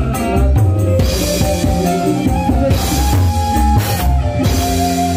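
Live campursari band music played loud through a big, bass-heavy sound system: a drum kit with several cymbal crashes over a deep bass line and sustained keyboard melody notes.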